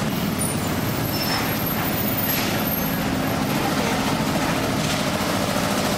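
Steady engine drone, mixed with street noise.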